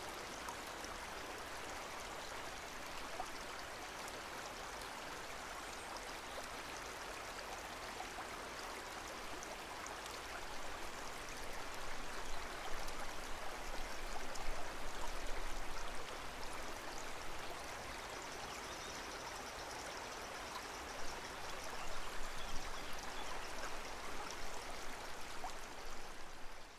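Aquarium water running and trickling steadily, a continuous water hiss, louder for a few seconds in the middle and again near the end.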